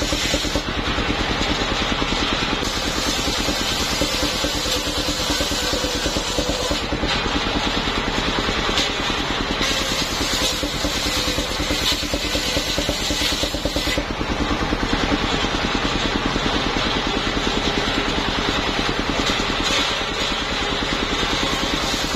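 Engine of a homemade vehicle-mounted circular sawmill running steadily while its large circular blade rips a waru (sea hibiscus) log lengthwise. The high cutting hiss fades and returns a few times as the log is pushed through.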